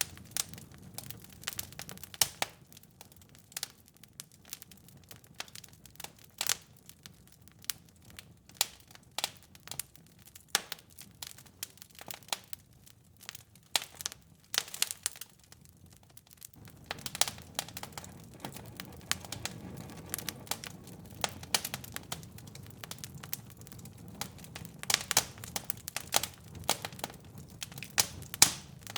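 Wood fire in a fireplace crackling and popping, with irregular sharp crackles over a low rumble of burning. The rumble drops away for a stretch and comes back suddenly a little past the middle.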